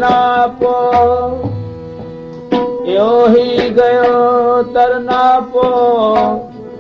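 Sikh kirtan music: a melody line with sliding notes played over tabla strokes.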